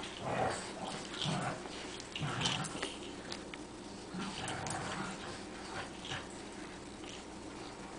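A puppy and a larger dog tugging a toy between them, with short whimpers and yips in uneven bursts about every second.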